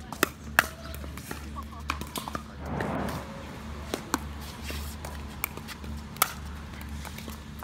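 Pickleball paddles hitting a plastic pickleball, heard as sharp, separate pops: two loud ones in the first second, then scattered lighter ones and another loud pop about six seconds in.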